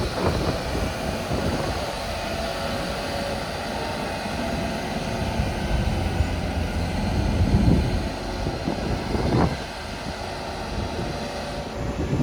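Liebherr LTM 1750-9.1 nine-axle mobile crane on the move, its engine running with a steady low rumble that swells a little a couple of times.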